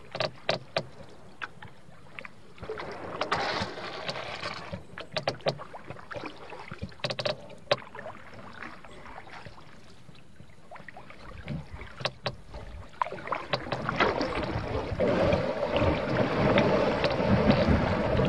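Canoe paddling: paddle strokes splashing, with sharp knocks scattered throughout, most likely paddles striking the hull. Water noise swells and grows louder over the last few seconds.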